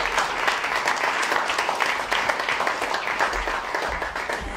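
Audience applauding: a dense, steady patter of many hands clapping that eases off near the end.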